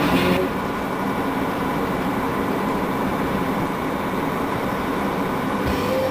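Steady engine and road noise heard from inside a moving vehicle's cabin.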